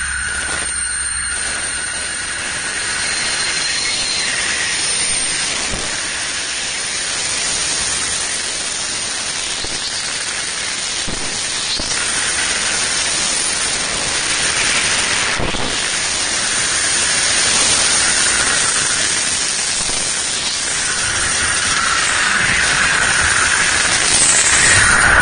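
Amtrak passenger train (the California Zephyr) running directly over a microphone set between the rails: a steady, loud rushing hiss of wheels, undercarriage and air, with a few sharp clicks partway through.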